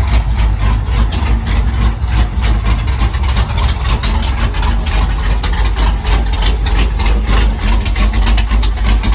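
408 cubic-inch stroker LS V8 idling loudly, with an uneven, pulsing beat, during idle tuning.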